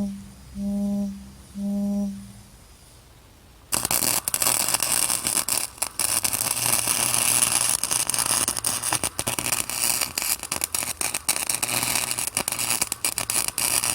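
Flux-core wire welder arc crackling and sizzling with many sharp pops as a nut is welded onto a broken bolt stub in a cast iron exhaust manifold, starting abruptly a little under four seconds in. Before it, three short humming beeps about a second apart.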